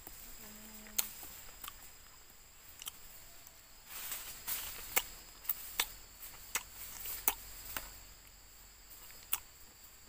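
Eating unripe mango rujak: irregular sharp clicks of a metal spoon on a plastic plate and crunchy chewing, with a denser stretch of crunching about halfway through. Under it runs a steady high-pitched insect drone.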